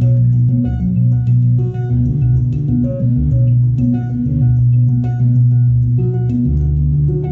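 Improvised modular synthesizer music: a sustained deep bass line under short, repeating plucked-sounding notes and light ticks, the bass changing note about six and a half seconds in.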